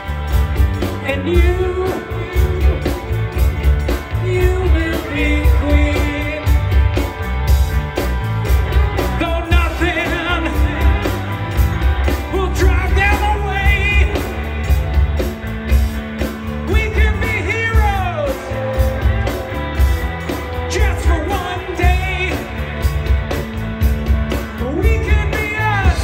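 Live rock band playing through a stage PA: electric guitars, bass guitar and drum kit keeping a steady beat, with a singing voice coming in at times.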